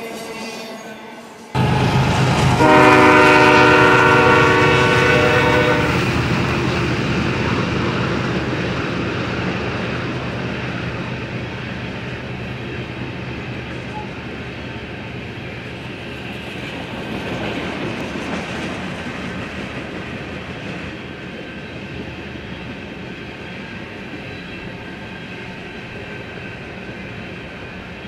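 Quieter rumble of a double-stack container train rolling past, cut off abruptly about a second and a half in. Then a diesel locomotive's multi-chime horn sounds one long blast of about three seconds over the rumble and clickety-clack of loaded coal hopper cars rolling past, and the rolling noise slowly fades.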